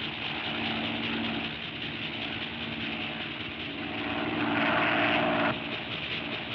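Steady mechanical droning hum from a vintage cartoon soundtrack, the sound effect of the laboratory machinery, over old film-track hiss. About four and a half seconds in, a louder, higher hum swells for about a second and cuts off suddenly.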